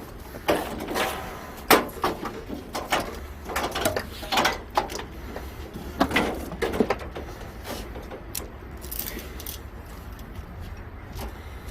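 Irregular knocks and clatter of tools and metal parts being handled, over a steady low hum. The knocks come thick for the first several seconds, then thin out.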